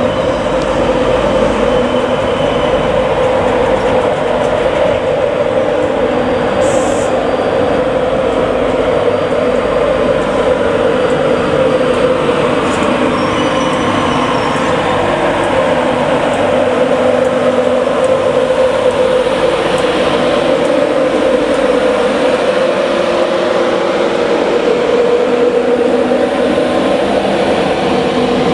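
Class 91 electric locomotive 91101 and its passenger coaches rolling slowly past, a steady electric hum over the running noise of the train. A short, high click about seven seconds in.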